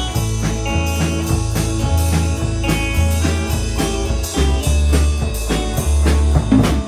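Band music with a drum kit, guitar and a pulsing bass line, at a steady beat.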